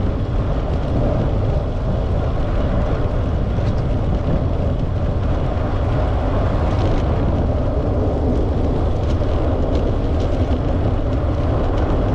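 Steady wind rush and rumble on the microphone, with tyre noise, from riding a bicycle along a path; the level stays even throughout.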